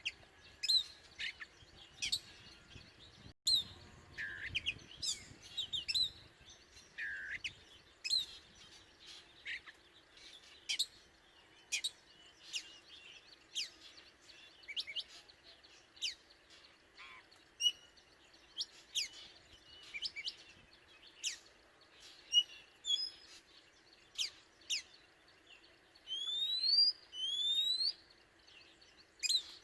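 Oriental magpie-robin singing: a varied run of short, sharp whistled notes and chirps, with two longer rising whistles near the end.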